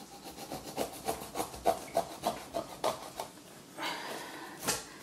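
Kitchen knife sawing back and forth through the tough rind and firm flesh of a large marrow, a rasping stroke about three times a second that stops a little after three seconds in. One sharper click near the end.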